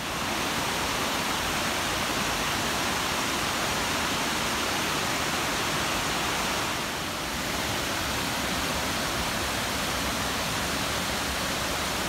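Waterfall cascading over rock ledges into a pool: a steady rush of falling water, dipping slightly for a moment about seven seconds in.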